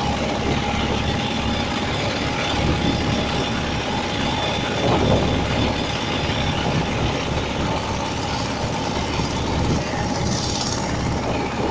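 A boat's engine running steadily, with a constant whine over a wide rushing noise.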